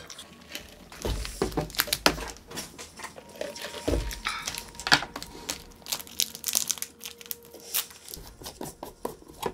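Plastic snack wrapper crinkling and rustling as it is handled and opened, with small clicks and a couple of low knocks of things being set down on a table, about a second in and about four seconds in.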